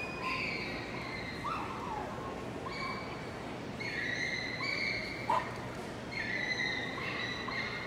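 A dog whining and yipping: a string of high-pitched whines, some falling in pitch, broken by a few short sharp yips, over a steady low background hum.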